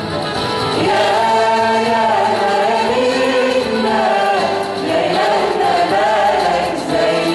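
Church choir singing an Arabic Christian hymn, voices holding long melodic lines that move from note to note.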